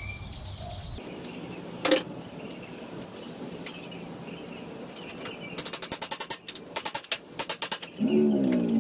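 A single sharp knock about two seconds in, with short ringing, like a hammer striking pallet wood. From about halfway through, background music comes in: a fast, crisp percussion beat, with a synth tone entering near the end.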